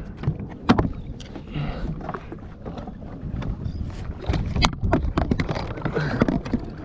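Close knocks, clicks and rubbing from a camera being handled and swung around on a jet ski, with a steady low rumble underneath.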